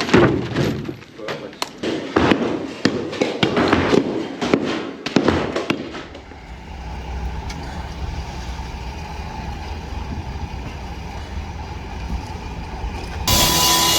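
Irregular knocks and clattering for about six seconds, then a steady low rumble. Near the end a louder, even hiss cuts in suddenly.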